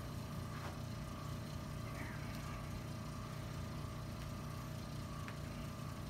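A small electric motor running with an even, steady hum that stops right at the end.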